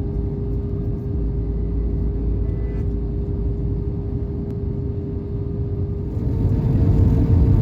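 Airliner cabin noise: a steady engine drone over a low rumble, which steps up slightly in pitch and grows louder about six seconds in.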